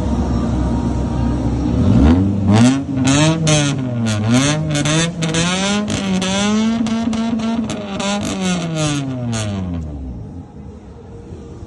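Lowered Honda Civic sedan's engine revving through a loud twin-tip exhaust: after about two seconds of idling it is revved up and down again and again, with many sharp pops, then the revs fall back near the end.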